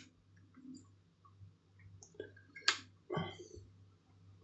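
Sparse, quiet clicks and taps of a 35 mm film cassette and its leader being fitted into a Nikon F5's film chamber, with one sharper click about two and a half seconds in.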